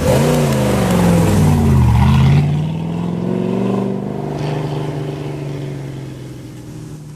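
Rally car engine accelerating hard, its note rising and dropping twice as it shifts up through the gears, then holding a steadier, slowly falling note that fades as the car pulls away.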